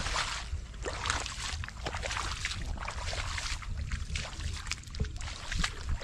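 Feet wading and kicking through shallow muddy water, splashing and sloshing in irregular strokes.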